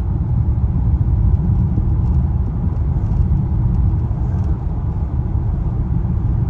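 Car driving along at speed: a steady low rumble of road and engine noise, heard from inside the cabin.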